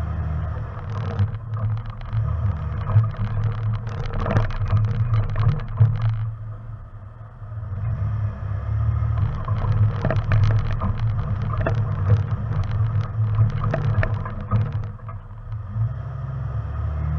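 Off-road vehicle engine running low and steady while crawling over a rocky trail, with frequent clicks and knocks of rocks and gravel under the tyres. The clatter eases twice, about halfway through and again near the end.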